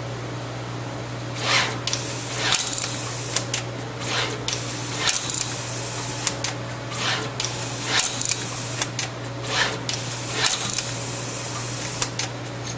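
Pick-and-place machine at work placing capacitors on a panel of circuit boards: a steady low hum with short hissing bursts and sharp clicks about once a second as the head picks and places parts.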